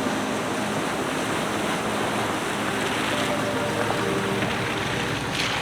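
Steady rush of flowing creek water, with faint sustained tones underneath.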